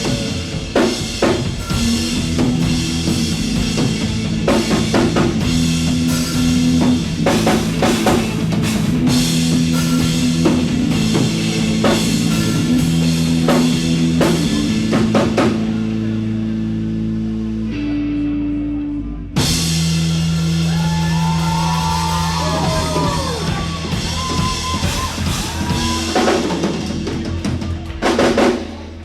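Live rock band playing an instrumental passage: a drum kit with kick drum, steady bass notes and electric guitar. The drums drop out for about a second and a half about two-thirds through, then come back in with a hit.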